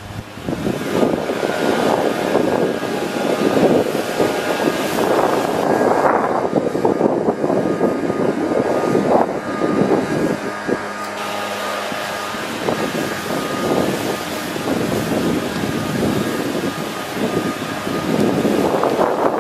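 Wind buffeting the camera microphone in gusts: a loud, uneven rush that swells and eases every second or two.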